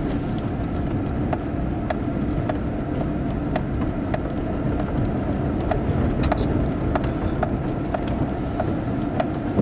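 Steady engine and road rumble inside a moving vehicle's cab. A light click repeats evenly about twice a second over it.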